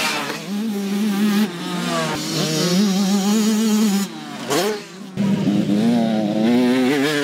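Two-stroke motocross bike engines revving, the pitch climbing and falling with the throttle. The sound breaks off abruptly several times, with a quieter dip about four to five seconds in.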